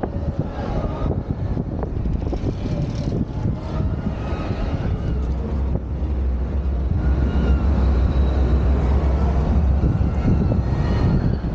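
Steady low rumble of wind and the moving Skyway gondola in an open-sided cable car, heavier from about halfway through, with small knocks and rattles.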